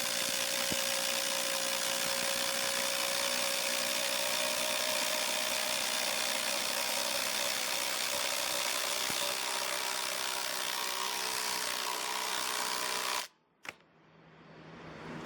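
Two cordless brushless impact drivers hammering together at full speed, driving 6-inch TimberLOK screws into 6x6 timbers. The sound is a steady, continuous rattle that cuts off suddenly about 13 seconds in.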